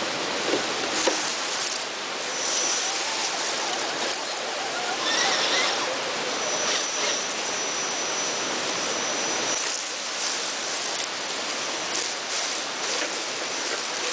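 Steady rush of running water, with a thin high whine for a few seconds in the middle.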